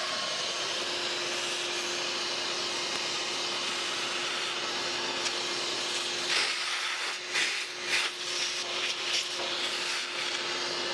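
Milwaukee cordless vacuum running steadily with a constant whine, sucking loose lint and dust out of the base of a gas dryer. From about six seconds in, irregular scraping bursts come and go over the steady motor.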